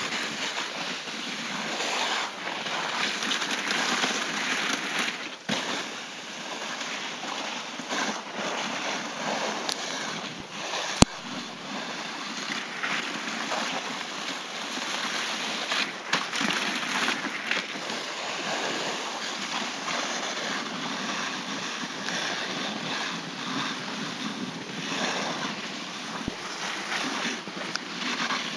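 Steady rushing hiss of a dog sledge's runners gliding over snow, mixed with wind on the microphone, and one sharp click about eleven seconds in.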